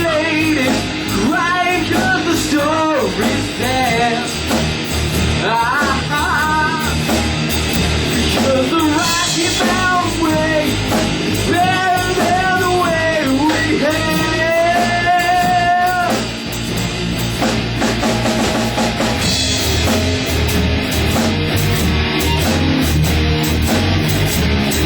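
Rock band playing: a male lead vocal over electric guitar, bass and drums. The singing stops about two-thirds of the way through and the band plays on instrumentally, with guitar to the fore.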